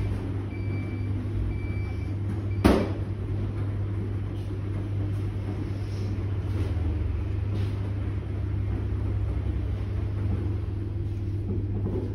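Electrolux W4250S washer-extractor tumbling a wet double duvet in the main wash: a steady motor hum with soft sloshing as the load turns over. A single sharp clunk comes about two and a half seconds in.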